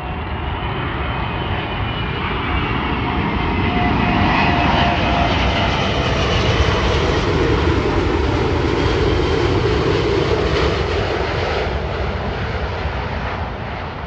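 An Airbus A380's jet engines on landing approach: a rushing roar with a high whine on top. It grows louder to a peak in the middle and fades near the end as the plane passes and descends toward the runway.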